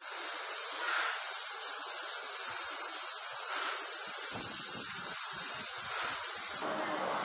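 A loud chorus of cicadas making a steady high-pitched buzz, which cuts off suddenly near the end.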